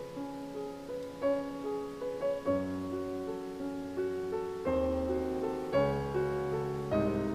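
Background piano music: a slow melody of held notes over low bass notes that change every second or so.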